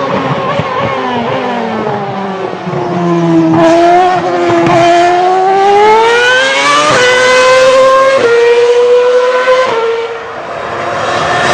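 Formula 1 racing engine running at high revs. Its pitch falls for the first few seconds, climbs again, then drops in two sudden steps like upshifts about seven and eight seconds in, before easing off near the end.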